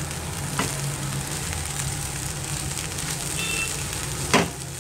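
Fried rice sizzling in a hot pan while being stirred and scraped with a spatula, over a steady low hum. A sharp knock of the spatula on the pan comes near the end.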